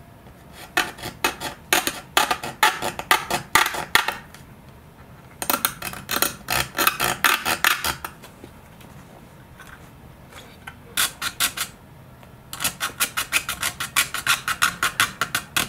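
A small pointed file rasping back and forth against a painted model-glider fuselage, scraping the paint off around a plug opening to roughen it for glue. It comes in four runs of quick strokes with short pauses between.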